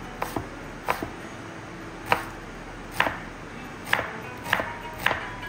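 Sharp kitchen knocks, about eight of them at roughly one a second, a few in quick pairs, some with a short ring, over background music.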